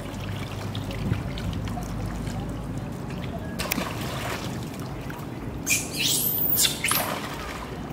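Water splashing as a young macaque drops into a concrete tank about four seconds in. Near the end come loud, high-pitched shrill squeals that bend up and down, from a macaque.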